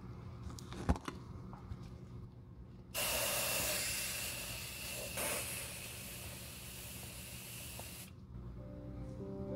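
TRG The One shoe deodorant aerosol spraying into a leather ankle boot: one steady hiss of about five seconds, starting about three seconds in, with a brief surge midway. A sharp click about a second in, and background music coming in near the end.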